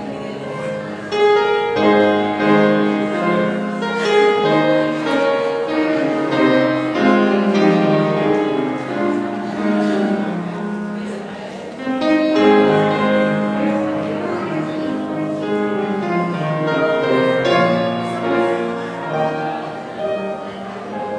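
Instrumental postlude played on piano in full chords at the close of a church service, with a new phrase starting about a second in and another about twelve seconds in.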